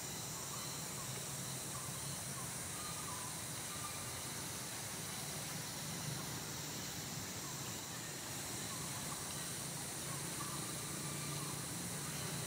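Steady outdoor background hiss with a faint low hum under it, and no distinct event standing out.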